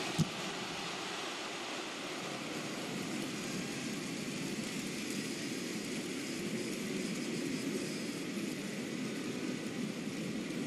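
Steady hum of a stadium crowd, with a single sharp thud a fraction of a second in as the ball is struck in a challenge between attacker and goalkeeper.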